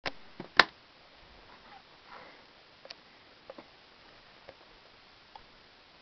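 A few scattered sharp clicks and light taps over faint hiss, the loudest a single sharp click less than a second in.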